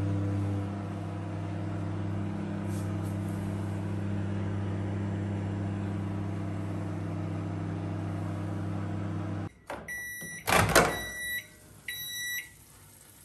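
Homage microwave oven running with a steady mains hum that stops about nine and a half seconds in. Then two beeps and a loud clunk as the oven door is opened.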